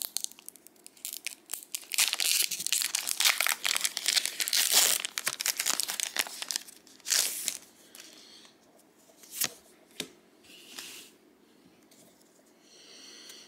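Trading card booster pack wrapper being torn open and crinkled by hand: a dense crackling for the first several seconds, then a few separate rustles and crackles.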